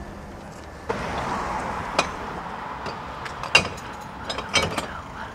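Hands rummaging through rubbish in a plastic wheelie bin: rustling with scattered knocks and clicks, starting suddenly about a second in.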